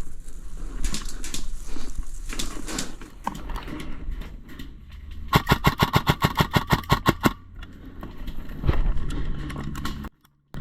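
Airsoft gun firing a rapid burst of about sixteen evenly spaced shots over two seconds, about halfway through, amid scattered rustling and knocks.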